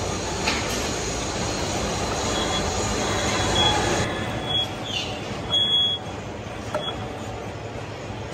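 Old vertical turret lathe cutting metal: a steady machine noise with several brief high-pitched squeals.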